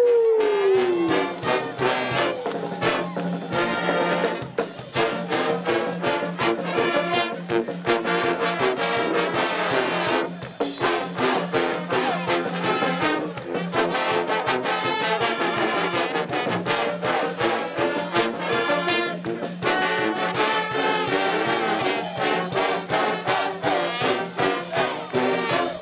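College pep band playing, trombones and trumpets loud over drums with a steady beat; one note slides down in pitch at the start.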